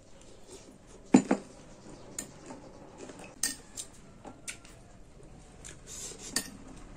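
A metal spoon clinking against a glass bowl in a handful of separate sharp clinks, the loudest a double clink about a second in.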